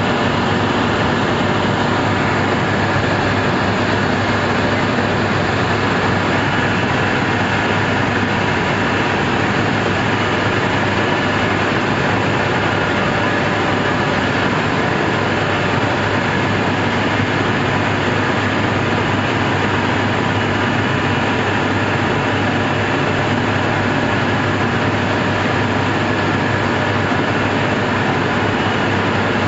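Wheat flour mill plant running: roller mills and the rest of the milling machinery give a loud, steady, dense machine noise with a low hum and a few steady tones, unchanging throughout.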